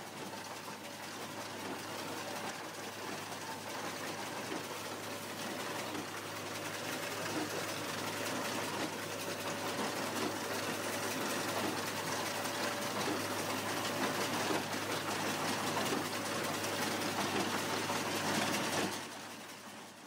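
Massey Ferguson tractor pulling a Hesston 4755 large square baler while baling hay: a steady mechanical clatter over engine noise. It fades in at the start and drops away shortly before the end.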